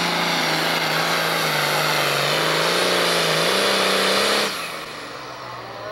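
Pro Stock pulling tractor's turbocharged diesel engine running flat out while dragging the weight sled, a loud steady drone. About four and a half seconds in it cuts off abruptly as the throttle comes off at the end of the pull, leaving a much quieter low engine hum.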